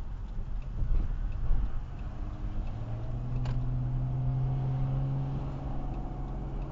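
Car driving in traffic, heard from inside the cabin: low road rumble, with a steady low engine hum that sets in about three seconds in. One sharp click midway.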